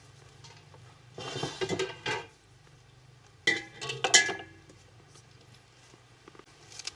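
Metal cooking pots and utensils clattering and clinking, in two short bursts about a second in and again past the middle.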